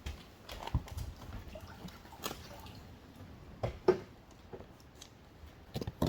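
Scattered light knocks, clicks and rustling of things being handled, a few sharper knocks standing out in the middle.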